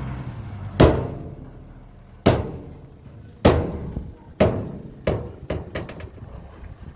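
Something hard dropped and bouncing: about eight sharp knocks, each ringing briefly. The first, about a second in, is the loudest, and each knock after it comes quicker and fainter.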